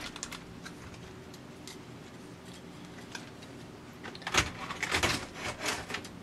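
Clicks and clatter of a receiver's amplifier circuit board, with its aluminium heatsink attached, being handled and turned over by hand. There are a few clicks at the start, a quieter stretch, then a dense run of knocks and rattles for the last two seconds.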